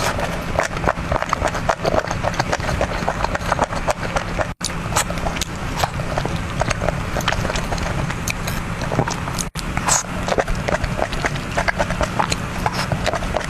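Close-miked chewing of crunchy food, a dense run of quick, irregular crunches and smacks over a low steady hum, cut twice by brief silent gaps.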